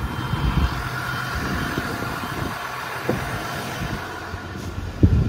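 6.7-litre Cummins inline-six turbo-diesel of a 2009 Ram 5500 idling steadily, with a thump about five seconds in.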